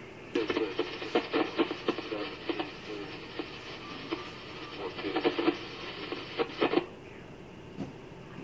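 Railroad two-way radio transmission heard through a scanner: a choppy, garbled voice that cuts in abruptly just after the start and cuts off about six seconds later, over steady receiver hiss.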